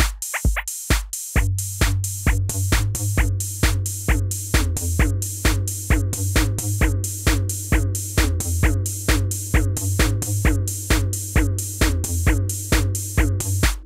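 Electronic background music with a steady drum-machine beat and deep bass.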